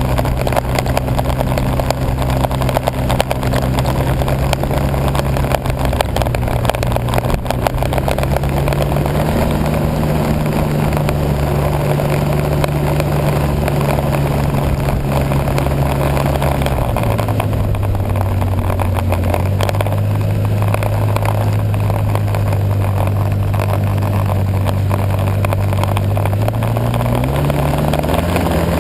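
Engine of a ridden vehicle running steadily under a constant rushing noise. Its pitch drops a step about halfway through and climbs again near the end as it speeds up.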